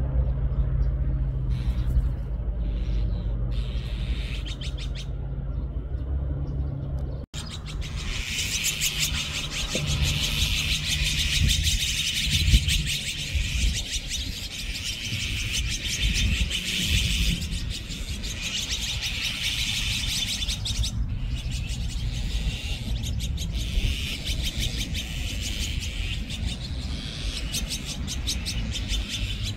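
A flock of azure-winged magpies calling noisily: from about seven seconds in, a dense chatter of many short overlapping calls with only brief lulls. Before that, a steady low rumble with only faint calls over it.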